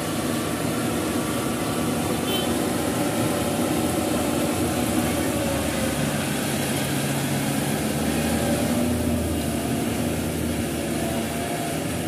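Yanmar AG600 combine harvester's diesel engine running steadily under load as it cuts and threshes rice, with the machine's cutting and threshing gear whirring along. The engine note changes a little about halfway through.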